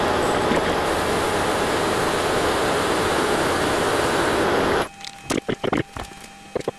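Weiler Matador SV lathe turning a taper with the compound slide, sped up so that it becomes an even rushing hiss. The hiss cuts off abruptly about five seconds in, leaving faint scattered clicks and knocks.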